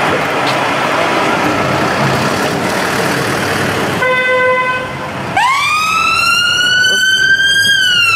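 Street traffic with car engines running. About four seconds in it changes abruptly to a short steady tone, then an emergency-vehicle siren wails, rising quickly, holding high and starting to fall near the end.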